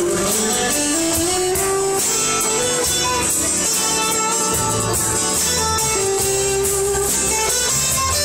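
Live country band playing an instrumental passage: strummed acoustic guitar, electric bass and drums with cymbal strokes, under a lead line of sustained notes that slide between pitches.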